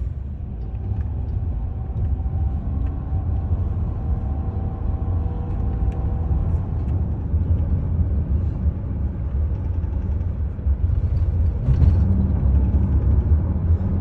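Cabin sound of a Waymo self-driving Chrysler Pacifica minivan under way: a steady low road rumble, growing louder about eleven seconds in.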